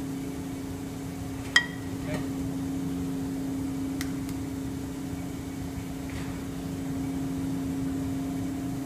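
Steady low hum of kitchen equipment, with a sharp metallic clink that rings briefly about one and a half seconds in as a small frying pan is set back down on the metal top of a stored-solar heat vessel, a smaller clink just after, and a light tap about four seconds in as an egg is cracked.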